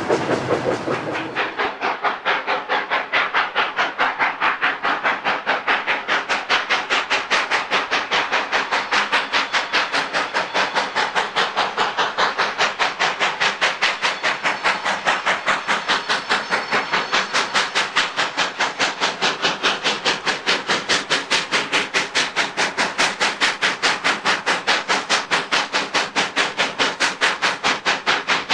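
Steam locomotive exhaust beating steadily at about four chuffs a second as the engine works under load hauling a train of goods wagons.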